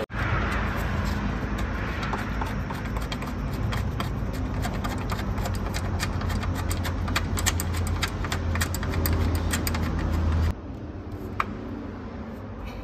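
Light, irregular metallic clicks and taps from hand tools tightening a CNG reducer's mounting, over a steady low hum. The hum cuts out suddenly about ten and a half seconds in, leaving a quieter hiss with one more click.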